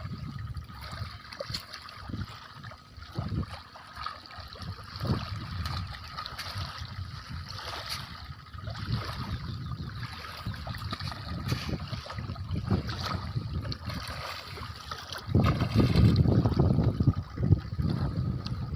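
Water lapping and trickling against a small boat, with scattered light knocks. About three-quarters of the way through comes a louder low rumble lasting a few seconds.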